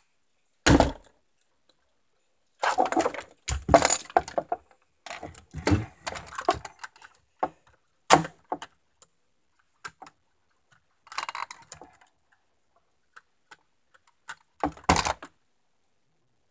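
Plastic Buzz Lightyear action figure being handled: a sharp knock about a second in, then several bursts of plastic parts clattering and clicking, and another sharp knock near the end.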